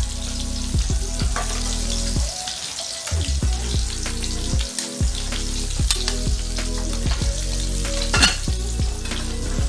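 Bilong-bilong fish sizzling steadily in hot oil in a frying pan, with soft background music with a beat underneath. A brief metal clink about eight seconds in as a lid goes onto the pot beside it.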